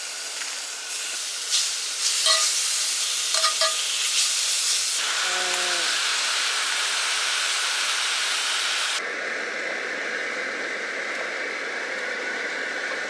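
Food sizzling as it fries in a pan on a camp stove. There is a steady frying hiss with a few sharp clicks of a utensil stirring in the pan between about one and a half and four and a half seconds in. About nine seconds in the hiss abruptly turns duller and lower.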